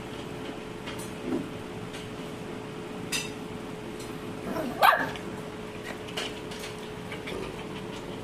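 Shih-poo puppy barking a few short, separate times, the loudest bark about five seconds in, with a faint steady hum beneath.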